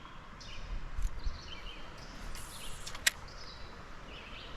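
Quiet outdoor ambience with faint, short bird chirps, and one sharp click about three seconds in.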